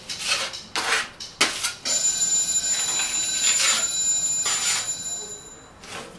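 Putty knife scraping filler across a plaster wall in a series of short strokes. From about two seconds in until near the end, a steady high-pitched tone sounds alongside the strokes.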